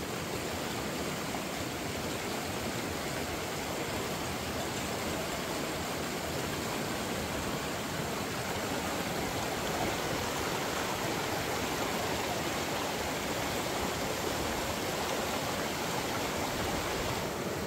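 Fast-flowing river water rushing over rocks: a steady, unbroken rush.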